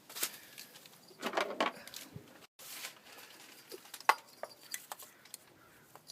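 Scattered clicks and light knocks of parts being handled and fitted back into the spark plug holes on the valve cover. There is a short rustle a little after one second, and the sharpest click comes about four seconds in.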